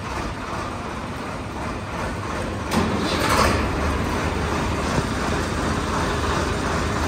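Swaraj 960 FE tractor's diesel engine running steadily with a low rumble, with a brief louder clatter about three seconds in.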